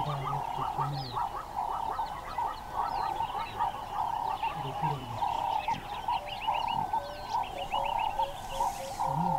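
A steady chorus of frogs and birds: a dense pulsing trill with many short chirps above it. A few short low sounds come in near the start and about halfway through.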